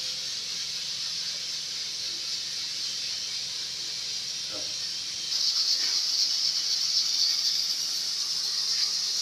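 Steady hiss from an aluminium pressure cooker on a gas ring burner, getting louder about five seconds in.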